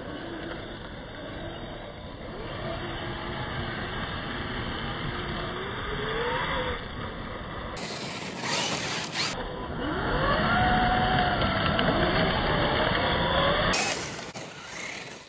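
Losi LMT RC monster trucks' electric motors whining, their pitch rising and falling with the throttle, with tyres scrabbling and spraying on loose gravel. A brief burst of gravel hiss comes about 8 s in, and another near the end as a truck slides sideways through the dust.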